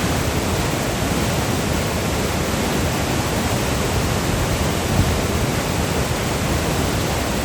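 Waterfall: water pouring over a rock ledge into a plunge pool, a loud, steady rushing noise.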